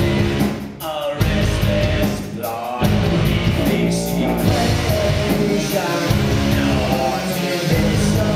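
Live rock band playing a song: drums, heavy bass, guitar and a male lead vocal singing.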